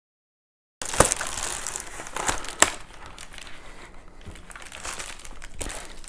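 Plastic poly mailer bag crinkling and rustling as it is opened and handled, with a few sharp snaps early on the louder side, after a brief moment of dead silence.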